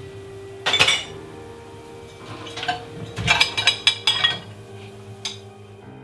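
Dishes, glasses and cutlery clinking and clattering as a dishwasher is emptied: one loud clatter about a second in, a quick run of clinks in the middle, and a last single clink near the end, over a steady low hum.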